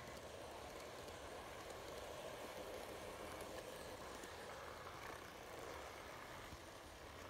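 N-gauge model train (TOMIX 185 series electric multiple unit) running past on track: a faint steady whirr of its motor and wheels on the rails, a little louder in the middle as it passes close.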